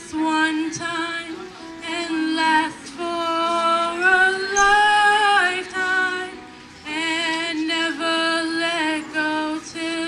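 A female voice singing a song over musical accompaniment, with some long held notes.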